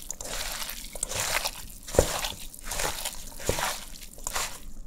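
Hands kneading sliced beef and onion in olive oil and spices in a stainless steel bowl: wet squelching and rustling in quick repeated strokes, with two sharper knocks about two and three and a half seconds in.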